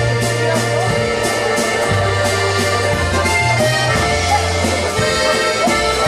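Live polka band playing a waltz, led by a button box accordion over deep bass notes that change about once a second, with a steady beat of light ticks.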